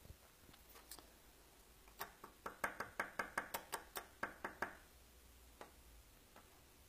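Light, quick tapping, about fifteen taps in two and a half seconds near the middle, with a few single clicks before and after. It fits a makeup brush being tapped against a small loose mineral eyeshadow jar to load or knock off pigment.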